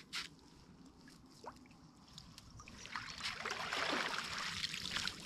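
An Opera House yabby net pulled by its rope out of shallow dam water, splashing and with water streaming off the mesh. The first half is nearly quiet. The splashing starts about halfway through and builds to its loudest just before the end.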